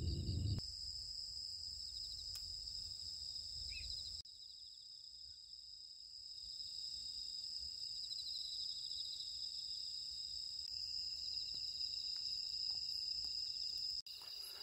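A chorus of night insects trilling steadily, several continuous high-pitched trills layered at different pitches, some of them pulsing rapidly. A low rumble lies under them for the first four seconds.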